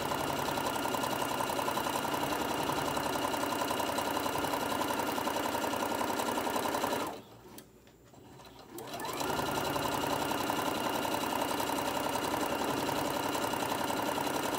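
Electric sewing machine stitching a straight seam through layered fabric and batting at a steady speed. It stops for about two seconds around halfway through, then spins back up and carries on sewing.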